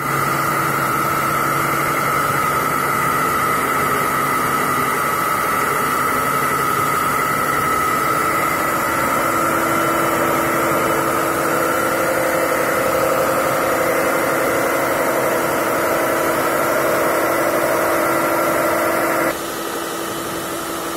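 Electric diamond core drill on a rig stand running steadily as it wet-cuts a hole through a concrete floor slab, a constant high motor whine over grinding noise. About 19 seconds in the whine cuts off and the sound drops to a quieter steady noise.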